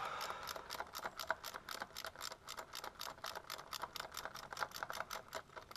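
Socket ratchet wrench clicking rapidly and evenly, about seven clicks a second, as it turns out the bolt holding a motorcycle's shift lever.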